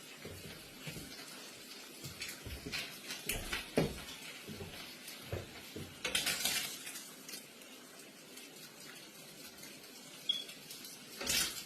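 Kitchen clatter while breakfast is prepared: dishes and utensils knocking and clinking in scattered short hits, with a brief noisy rush about six seconds in and another near the end.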